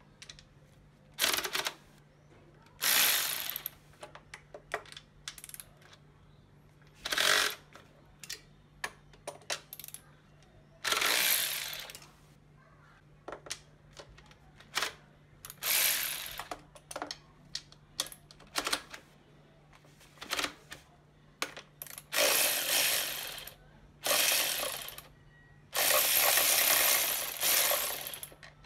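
Hand ratchet wrench clicking in repeated bursts, about half a second to two seconds each, while working 12 mm bolts and nuts, with short metallic clinks of the tool between the bursts.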